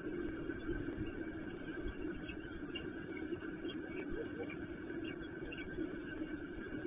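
Steady low background rumble, like distant traffic, picked up by a nest camera's muffled microphone. A few faint, short, high chirps come through over it from about two seconds in.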